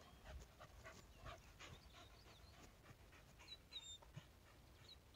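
Faint panting of a dog, a few breaths a second, over a low rumble, with a few short high chirps about three and a half seconds in.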